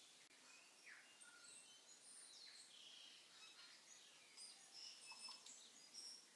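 Faint scraping and clinking of two metal forks against a stainless steel Instant Pot inner pot as cooked rice is fluffed, with short high squeaks and a few light clicks, busiest in the second half.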